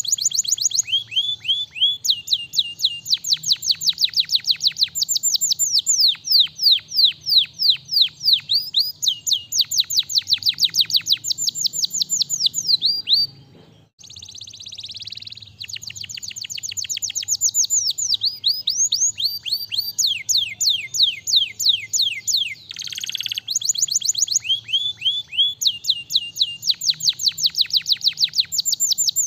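Domestic canary singing: fast trills of repeated down-sweeping whistles, several a second, one phrase giving way to the next, with a brief pause about halfway through.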